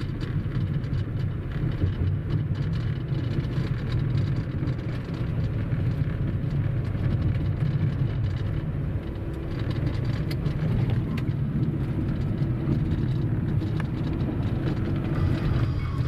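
Car driving, engine and tyre noise heard from inside the cabin as a steady low drone.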